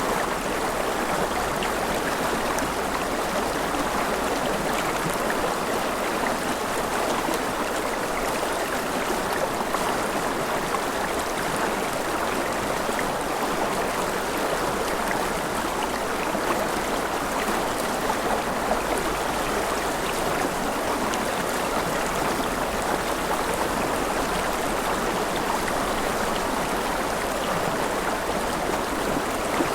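Mountain river running over rapids: a steady, even rush of water with fine splashing and gurgling texture.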